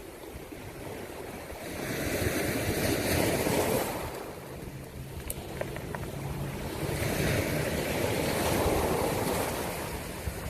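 Sea waves washing in, two swells of surf noise a few seconds apart, each rising and then easing off.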